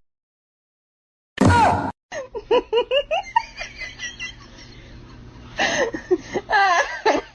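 Human laughter: a short loud cry with a falling pitch about a second and a half in, then a run of rhythmic laughing that grows louder near the end.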